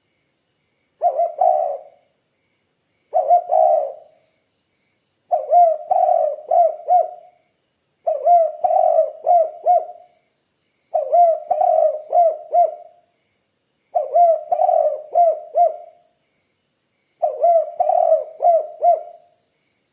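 Spotted dove (tekukur) cooing: seven phrases of low coos, each a quick run of three to five notes, repeating every two to three seconds.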